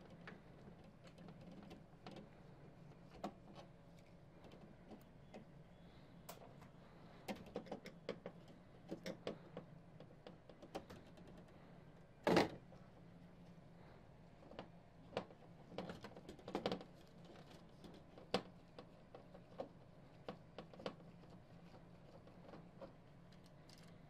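Scattered clicks and light knocks of a screwdriver and the board against a TV's sheet-metal chassis as the main circuit board is unscrewed and lifted off, with one sharper knock about halfway through. A faint low hum runs underneath.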